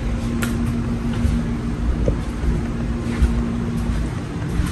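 1996 Impala SS's 5.7-litre LT1 V8 idling steadily with the air conditioning running, a steady low rumble with an even hum and a few faint clicks.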